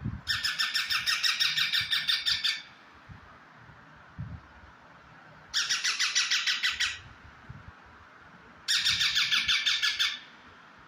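A pet parrot calling in three bouts of rapid, evenly repeated shrill calls, about six a second. The bouts come near the start, around the middle and near the end, each lasting one to two seconds.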